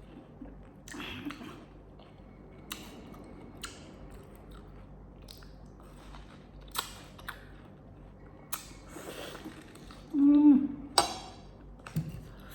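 Close-up eating sounds: chewing and wet mouth clicks and smacks at irregular intervals. About ten seconds in comes a brief, louder voiced sound from the eater, then a sharp click.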